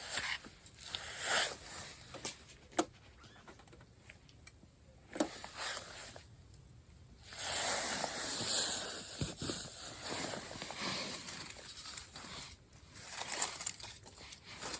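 Scattered clicks and light knocks with short rustles, then from about seven seconds in a longer stretch of rustling, like gear or fabric being handled.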